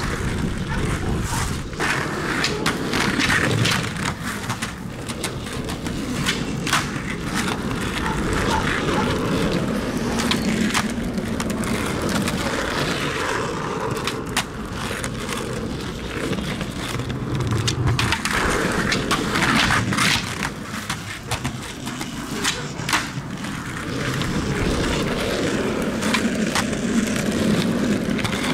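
Skateboard wheels rolling over rough asphalt, a steady gritty rumble, broken several times by sharp clacks of the board striking the pavement as tricks are popped and landed.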